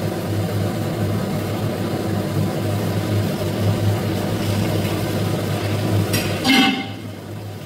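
Salmon pieces sizzling in hot sesame oil in a frying pan, over a steady low hum. About six and a half seconds in, a metal utensil clanks against the pan, and the sound is quieter after it.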